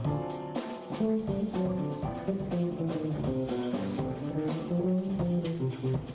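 Jazz quartet playing live in an instrumental stretch, with a moving bass line and melody over a drum kit.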